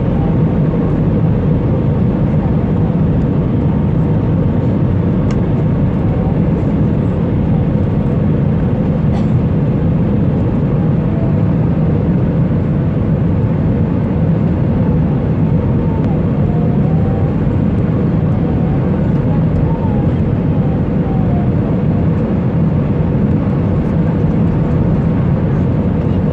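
Steady cabin noise inside an Airbus A320 during the landing approach: a constant low drone of the engines and airflow with a faint steady hum over it.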